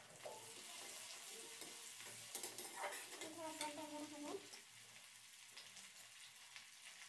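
Spice paste with green chillies sizzling in hot oil in an aluminium kadhai, stirred and scraped with a flat metal spatula. A steady light sizzle runs underneath, and scrapes of the spatula against the pan come at irregular moments.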